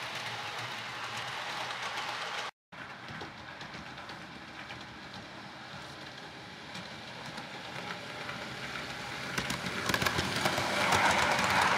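Hornby OO gauge model train (Class 67 locomotive hauling Mk3 coaches) running along the layout track, with a steady whirring rush of motor and wheels. The sound drops out for a moment near the start, then grows louder toward the end as the locomotive nears, with light clicking over the rail joints.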